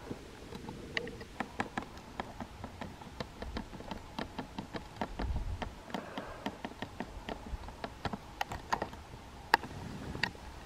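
Irregular sharp clicks and taps, about three or four a second, with one louder click near the end and a brief low rumble around the middle.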